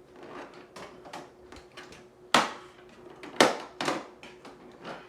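Hard plastic clicks and knocks as a cordless wet-dry shop vacuum's canister is opened by hand, with two louder clunks about two and a half and three and a half seconds in.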